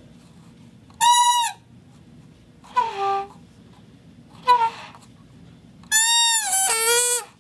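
Foley 'animal speech' sound effect: four separate creature-like vocal calls with falling pitch, like an animal babbling. The last call is the longest, wavering and then dropping in pitch.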